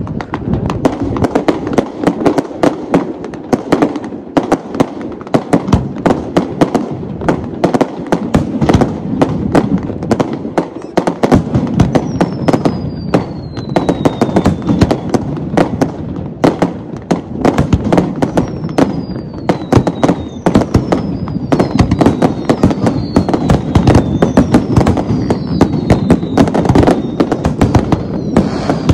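Fireworks display: a rapid, continuous run of bangs and crackling bursts, with several falling whistles from about halfway through.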